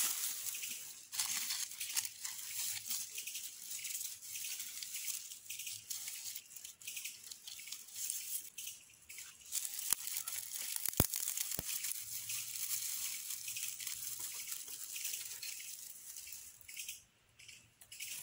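Dry grass being crumpled and twisted by hand into a tinder bundle: a dense, crackling rustle that stops shortly before the end, with one sharp click about eleven seconds in.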